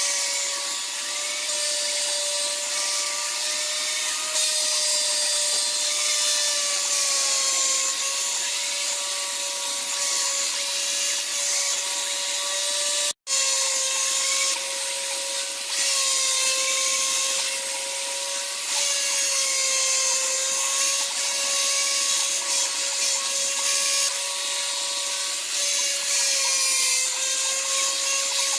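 A power tool motor running with a steady high whine that wavers slightly in pitch, over a hissy cutting or rubbing noise. The sound drops out for an instant about 13 seconds in, then carries on the same.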